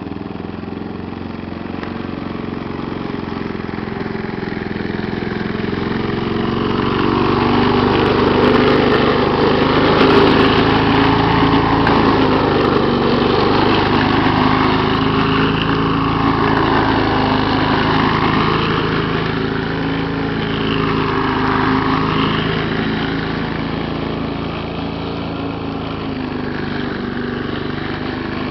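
Small 3.5 hp lawn mower engine running steadily, growing louder through the middle and easing off again toward the end.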